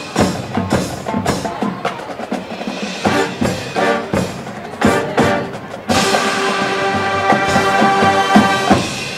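High school marching band playing: about six seconds of accented percussion hits, then the full band comes in on a loud sustained brass chord that is held until near the end.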